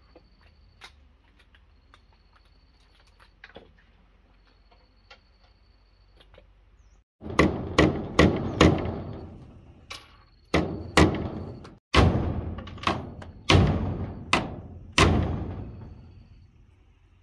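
About seven seconds in, a run of about a dozen loud, hard knocks begins, spaced irregularly from a few tenths of a second to over a second apart, each ringing out briefly before the next.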